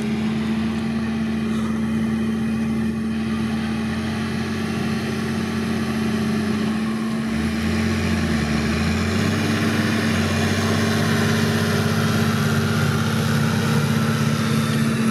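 Tractor diesel engine running steadily with a constant hum as it pulls a loaded silage trailer past, its low engine note shifting about halfway through.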